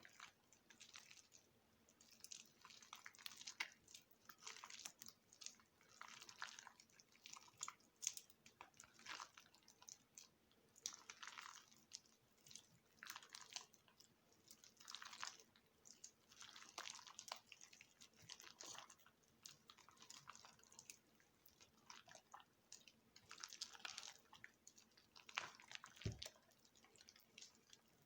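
Soft, week-soaked mushy soap being cut and crushed: a string of short, wet crunching strokes about every second or so, with fine crackles between them.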